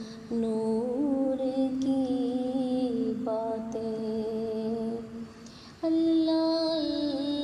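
A woman's voice singing a naat with long, held wordless notes, stepping to a new pitch every few seconds.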